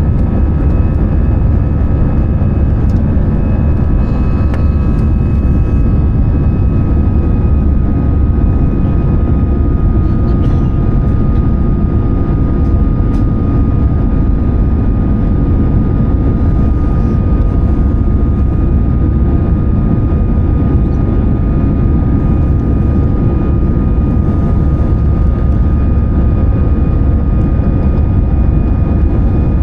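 Steady cabin noise inside an Airbus A320-214, a loud, even drone of CFM56 engines and airflow with a thin steady whine on top.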